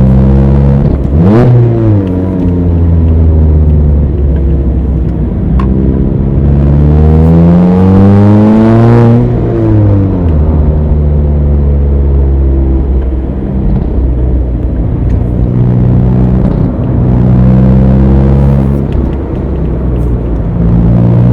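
Mazda Roadster (ND MX-5) four-cylinder engine pulling up a steep climb through a manual gearbox. Its pitch dips and recovers about a second in, rises steadily through a gear from about six to nine seconds, drops away around ten seconds, holds steady for a while, and climbs again near the end.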